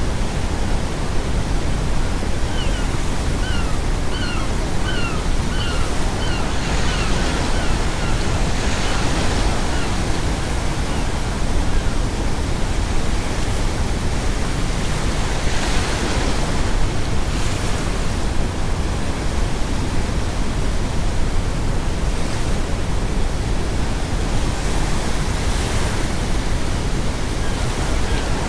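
Ocean waves breaking and washing on a shore over a steady bed of brown noise, with the wash swelling about seven seconds in and again around sixteen seconds. From about two to ten seconds in, a seagull gives a quick run of a dozen or so short calls.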